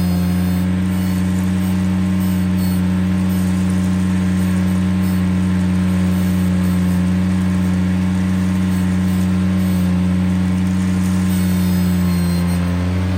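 Ventrac compact tractor engine running steadily at high revs under work, its pitch easing down a little near the end.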